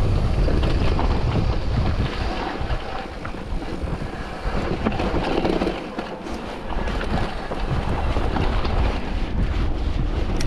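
Wind rushing and buffeting the microphone of a mountain bike descending a trail at speed, with scattered sharp clicks and rattles from the bike over rough ground in the second half.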